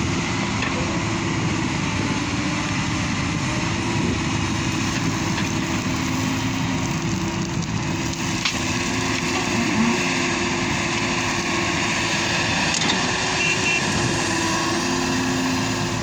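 Hyundai 220LC excavator's diesel engine running steadily as it works loading a truck.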